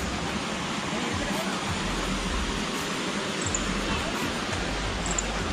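Steady rush of flowing water in a rocky gorge: an even hiss that does not change.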